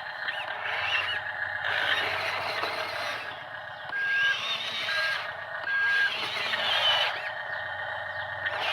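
Small electric gear motors of radio-controlled toy construction vehicles whirring and whining, the pitch wavering as they work, with three short beeps near the middle.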